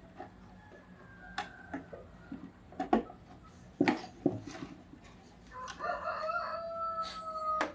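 Several sharp clicks and knocks as the connectors and parts of an opened CRT television chassis are handled and put back. Then, about two-thirds of the way in, a rooster crows once, a single long call of about two seconds.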